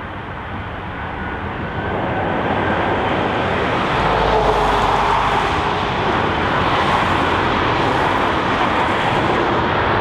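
Jet airliner passing close, its engines growing louder over the first four seconds and then holding a steady roar.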